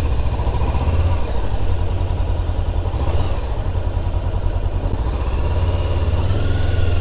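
Honda CBR400R's parallel-twin engine running as the motorcycle is ridden, with a steady low hum. The revs swell and ease a little a couple of times.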